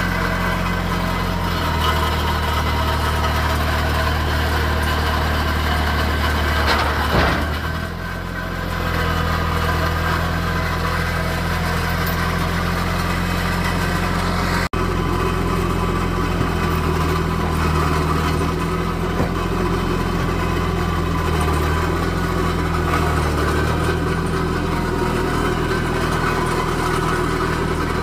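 Mahindra eMax compact tractor's diesel engine running steadily at idle. The engine note changes briefly about seven seconds in, and there is a momentary dropout about halfway through.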